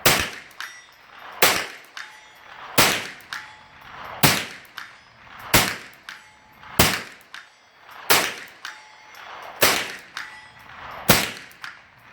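Ruger 10/22 .22 LR semi-automatic rifle firing nine single shots at an even pace, about one every second and a half. Each sharp crack is followed by a brief ringing from a hit steel gong target.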